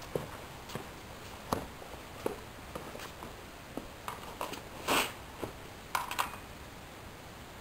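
Footsteps on pavement, a soft knock every second or so, then a louder scuff and rustle about five seconds in and two shorter ones a second later as a person sits down on concrete steps.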